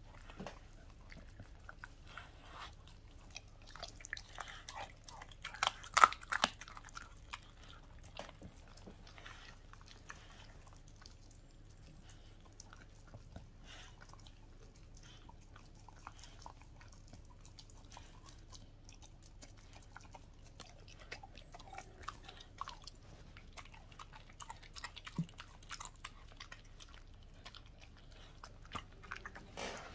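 A Welsh Corgi chewing and biting into a whole raw chicken: irregular wet chews and crunches, with the loudest cluster of bites about six seconds in and smaller ones scattered through the rest.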